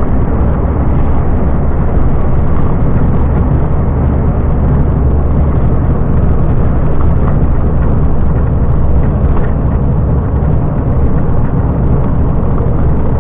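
Volvo FM 370 truck driving at steady speed on the highway: a constant deep engine drone with road noise.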